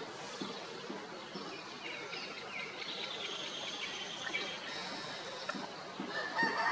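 Outdoor background noise with faint chirps of small birds.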